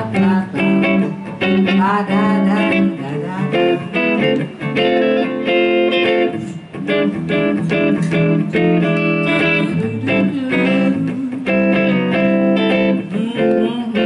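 Amplified archtop jazz guitar playing an instrumental break in a swing tune, with melodic lines of picked notes over a steady bass-register pulse.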